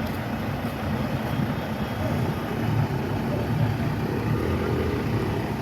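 Heavy vehicle engine running with a steady low rumble.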